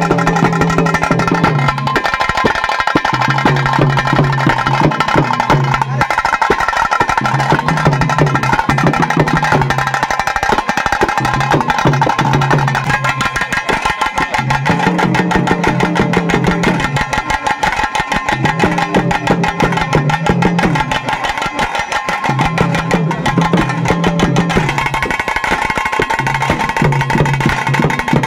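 Fast, continuous tase drumming for a Tulu Nadu tiger dance: sticks beating rapidly on small tase drums, with a lower pitched part repeating a short phrase every couple of seconds.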